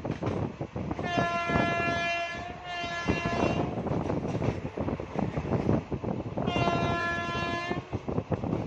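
WAP-4 electric locomotive's horn sounding a long blast about a second in, broken briefly near its end, then another blast near the end, steady in pitch. Underneath, the moving train rumbles and its wheels clatter on the rails.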